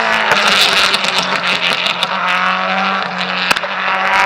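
Performance car engine running loud at high revs, fairly steady in pitch with some rising notes, overlaid with sharp exhaust crackles.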